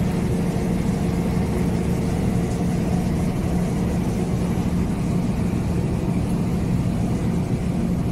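An engine idling steadily: a constant low hum that holds one speed and level throughout.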